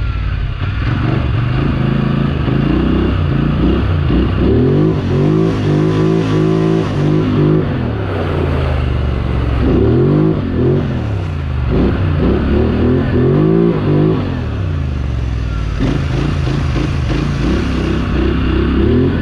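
Polaris Scrambler XP 1000 quad's twin-cylinder engine revving up and easing off again and again while it drives through mud, heard close up. Wind and mud spatter hiss over it.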